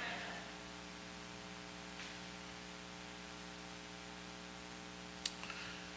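Steady electrical mains hum with evenly spaced overtones, picked up through the pulpit's microphone and sound system while no one speaks. A single faint click comes about five seconds in.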